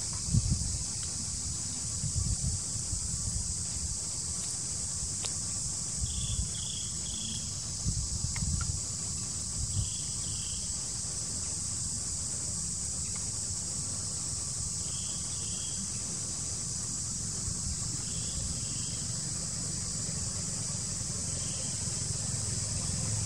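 Steady high-pitched insect drone in forest, with short high chirps in groups of two or three every few seconds and a low rumble with a few soft thumps.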